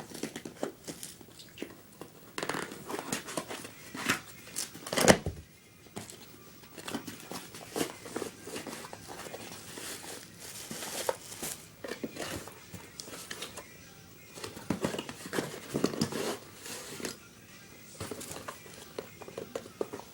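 A mailing package being torn and crinkled open by hand: irregular rustling and tearing of packaging, with one sharp, loud rip about five seconds in.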